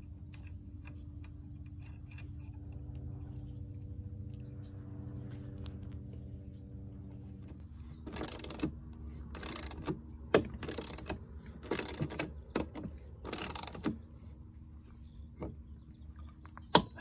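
Ratchet wrench tightening a bolt on a camper jack's steel mounting bracket: about seven short, sharp ratcheting strokes starting about halfway in, with a steady low hum underneath before them.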